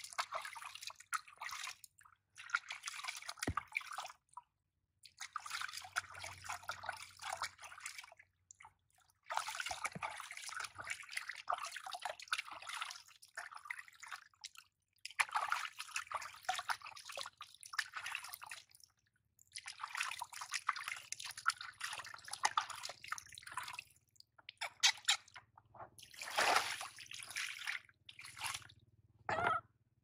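Water splashing and trickling in a plastic basin as hands scoop it over a baby monkey being bathed. It comes in bursts of a few seconds with short pauses between.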